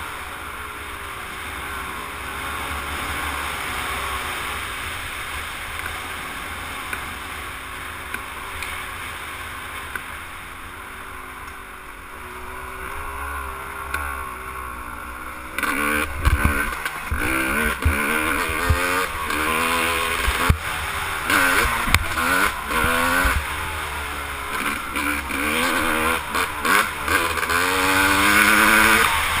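Yamaha YZ250 dirt bike engine heard from an onboard camera: running steadily at first, then about halfway through louder, with the pitch rising and falling again and again as the throttle is worked, and rising once more near the end. A few sharp knocks come in the louder stretch.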